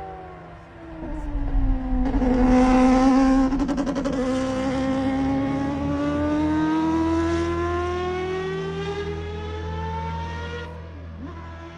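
Mazda 787B's four-rotor rotary racing engine running at speed: the revs dip briefly, then climb steadily in one long pull for about eight seconds before the sound drops away near the end.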